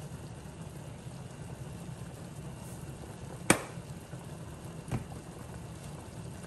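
Kitchen sounds while a cream sauce heats: one sharp knock of something set down or tapped on the counter or pan about three and a half seconds in, then a softer knock about a second and a half later, over a steady low hum.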